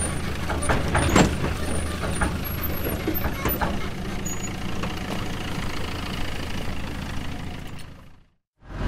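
Heavy vehicle engine running steadily with scattered clicks and knocks, fading out about eight seconds in; a louder engine sound begins just as it ends.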